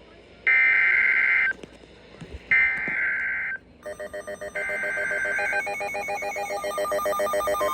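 Emergency Alert System SAME header: three bursts of digital data tones, each about a second long with a short gap between them, a harsh buzzing screech. From about four seconds in, a rapidly pulsing pattern of electronic tones comes in under the third burst and continues.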